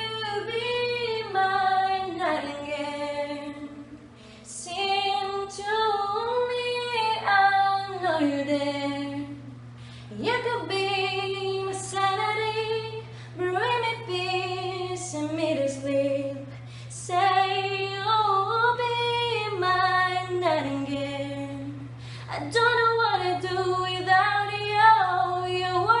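A young woman singing solo into a handheld microphone, in sung phrases of a few seconds with short breaks between, over a steady low hum.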